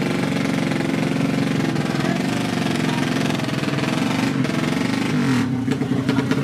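Drag-racing motorcycle with a horizontal-cylinder underbone engine of up to 200 cc, running loud with its pitch moving. Near the end it is revved, the pitch dipping and rising several times.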